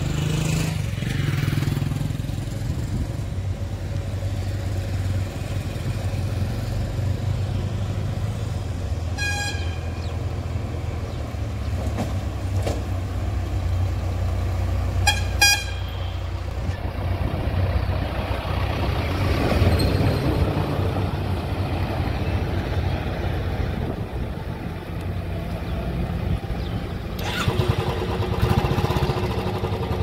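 JCB backhoe loader's diesel engine running steadily as it drives along the road. A vehicle horn toots briefly about nine seconds in, then twice more in quick succession around fifteen seconds.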